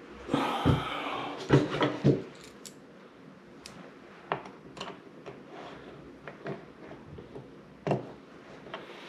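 Handling noise while a small plastic adapter is fitted by hand onto a shower valve stem: a burst of rustling with a few sharp knocks in the first two seconds, then scattered light plastic clicks and taps.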